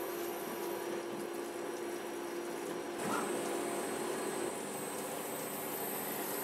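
RTL-4000 CNC lathe machining under flood coolant: coolant splashing and hissing, with a steady machine tone as the drill cuts. About three seconds in the sound changes abruptly to the parting-off cut, and a faint high whine comes in.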